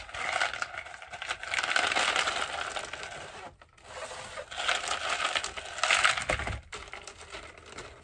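LECA expanded clay pebbles poured from a pot into a planter around a plant's roots: a dry rattling clatter in two pours, the second starting about four and a half seconds in.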